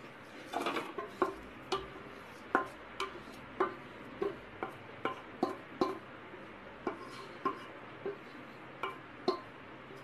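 Spatula knocking and scraping against a steel mixing bowl and a nonstick kadai as marinated chicken is tipped into the pan: a string of sharp clinks, roughly one every half second.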